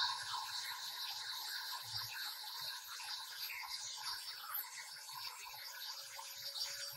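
Electric hand mixer running at a steady speed, its beaters whirring through frothy egg mixture and sugar in a glass bowl.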